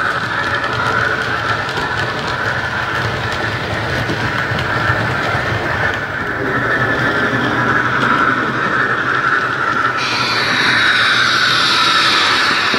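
Hornby A4 model locomotive running with its Howes DCC sound decoder playing steam locomotive sound through a small speaker in the tender, mixed with the model's running noise on the track. It is steady throughout and changes in character about ten seconds in.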